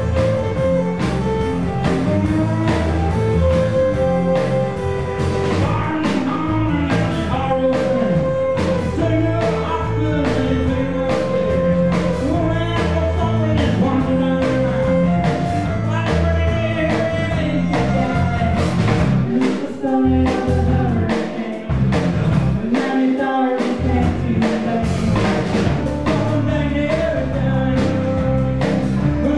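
Folk band playing live: violin, acoustic guitar, bass and drum kit with a steady beat, and a man singing lead.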